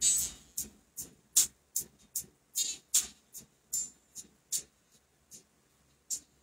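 A series of short sharp clicks, about two or three a second, growing fainter and stopping near the end.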